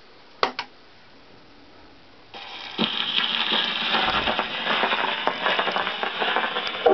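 A few clicks as a shellac 78 rpm record is handled onto the turntable of an EMG horn gramophone. About two and a half seconds in, the needle goes down with a knock, and the record's surface noise crackles and hisses through the horn as the lead-in groove plays.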